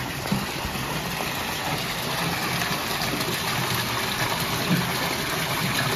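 Water pouring steadily from a small stone spout and splashing into a shallow pond.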